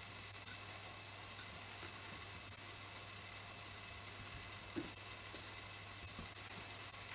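Steady high hiss with a faint low hum underneath, unchanging, with no distinct events: workshop background noise.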